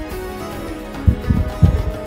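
Background music: sustained notes over a few low beats that come in about a second in.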